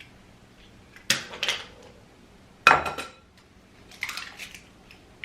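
Eggs being cracked against the rim of a mixing bowl: sharp knocks on the bowl, which rings briefly, with a louder knock about a second in and another just under three seconds in, then a few lighter clinks about four seconds in.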